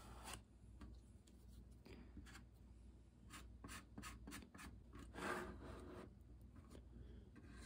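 Faint scraping of a plastic Bondo spreader dragging plastic metal filler across a 3D-printed PLA seam, scraping off the excess in short strokes, with one longer, louder stroke about five seconds in.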